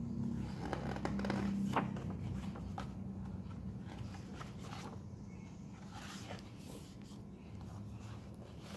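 Pages of a large picture book turned by hand: paper rustling and flapping, with scattered short crisp rustles, strongest in the first two seconds.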